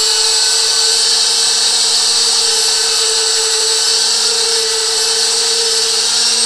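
Electric meat grinder running with a steady motor whine, grinding chunks of raw garfish as they are pushed down its feed tube.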